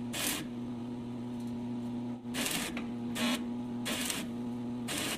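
Arc welding tack welds on steel square tubing: about five short crackling bursts of the arc, each well under a second, over the steady hum of the welding machine.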